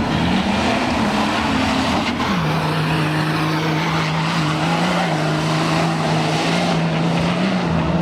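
Off-road 4x4 engine running hard at steady revs; its note drops a step a little over two seconds in, then holds level.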